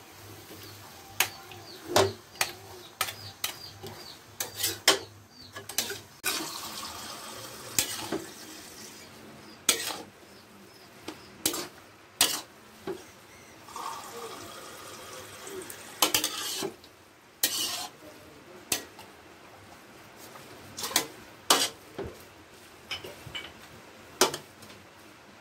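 Metal spatula scraping and knocking against an aluminium wok while glass noodles with cabbage and carrots are stir-fried and tossed, in irregular clanks and scrapes.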